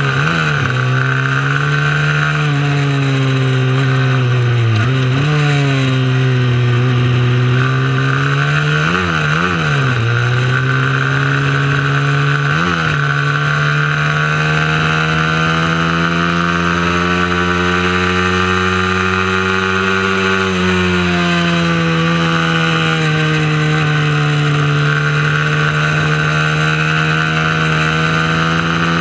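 Small mini moto race motorcycle engine running hard and continuously. Its pitch dips and picks up again several times in the first half, then climbs steadily for about six seconds, drops suddenly and holds high.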